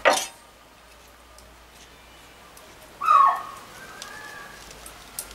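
A kitchen knife is picked up off a wooden table with a sharp knock. About three seconds in comes a short, loud squeak that drops in pitch at its end.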